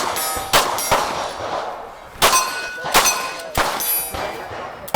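About six shots from a compensated Walther PDP pistol, fired at an uneven pace. Each is followed by the ringing clang of steel targets being hit.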